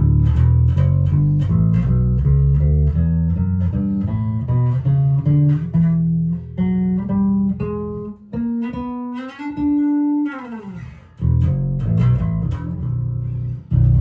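Schecter Studio 5 five-string electric bass played on its neck pickup alone: a run of plucked single notes. About ten seconds in, one note slides down in pitch and dies away, and the playing starts again about a second later.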